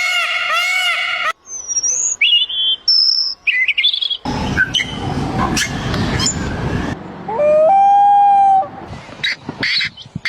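Bird calls of several different kinds following one another with abrupt changes. First come repeated arching notes, then high whistled song notes, then a harsh, noisy stretch. About two-thirds of the way through there is one long held call, and short chirps come near the end.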